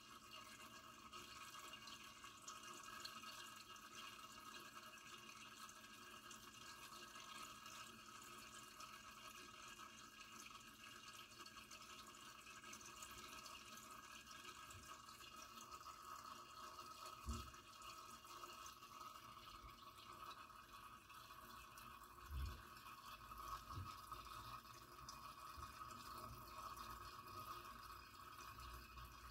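Near silence: faint steady room hiss, with a few soft low bumps about halfway through and later.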